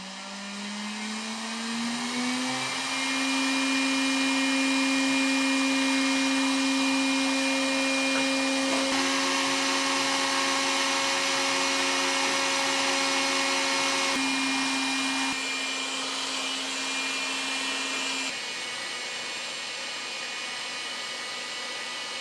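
A 3D-printed turbocharger spun by a small electric fan motor: a whine that rises in pitch as it spins up over the first few seconds, then holds steady over a rushing air hiss. The sound changes abruptly a few times, and the whine drops out about three quarters of the way in, leaving the hiss.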